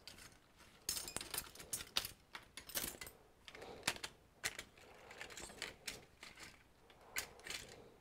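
Irregular clicking, tapping and scraping of small plastic and metal repair tools and pry cards being picked up, handled and put down on a work mat.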